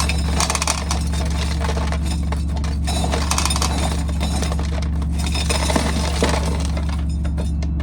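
Dry corn kernels rattling and clinking in irregular clusters as an ear of corn is worked into a corn sheller, over a steady low hum.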